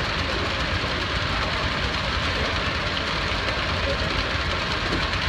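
Heavy machinery running steadily, an even mechanical din with no distinct strokes.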